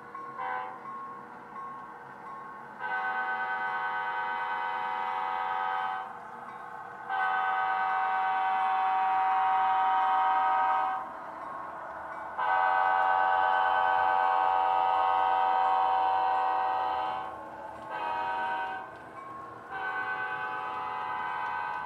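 HO scale model locomotive's DCC sound decoder sounding a multi-chime diesel horn: a brief toot, three long blasts, then a short blast and a long one near the end.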